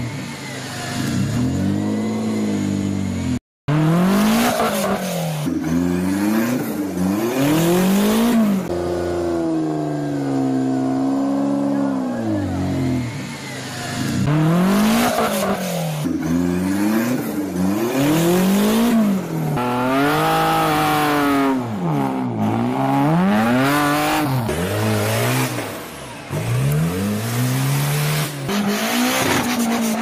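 Modified off-road 4x4 engines revving hard in repeated surges that climb and fall, with noisy spikes from wheels spinning and clawing at mud. The sound cuts out briefly about three and a half seconds in.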